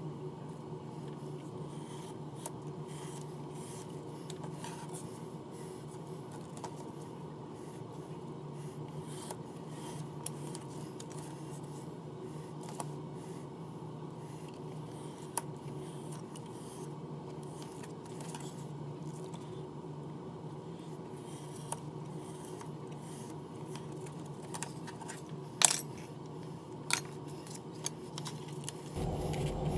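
Hobby knife and steel ruler working a white sheet on a cutting mat: faint scattered clicks, taps and light scraping over a steady low hum, with one sharper click a little before the end.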